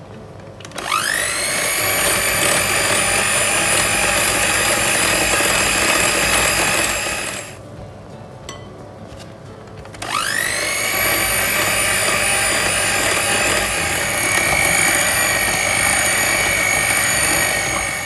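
Elekta electric hand mixer beating dry ingredients into cake batter in a glass bowl. Its motor whine rises as it switches on about a second in, runs steadily for about six seconds and stops, then starts again with the same rising whine about ten seconds in and runs on.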